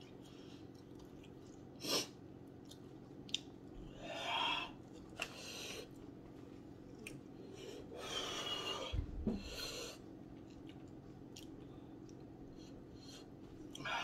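A man chewing and blowing out hard, breathy exhalations through pursed lips against the burn of very hot chili wings, several huffs with the longest about eight to ten seconds in. A low steady hum runs underneath.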